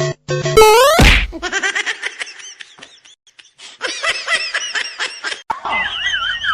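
Laughter in two bouts of quick pulses, added over a comedy clip. It comes after a short electronic beep and a fast rising sweep sound effect, and near the end a wavering, whistle-like sliding tone begins.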